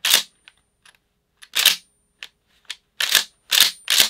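Pump action of a Mossberg 590 shotgun being worked, the forend racked back and forth with sharp metallic clacks. The clacks are irregular at first, then come about two a second near the end.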